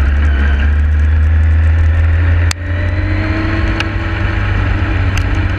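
Yamaha YZF-R6 inline-four engine running at speed, under strong wind noise on the microphone. About two and a half seconds in there is a click and a short break in the sound, after which the engine note rises steadily as the bike pulls again.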